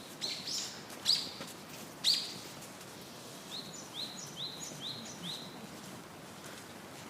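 Birds calling: series of short, high rising notes, about two a second, with a few louder, sharper calls in the first two seconds, over a steady background hiss.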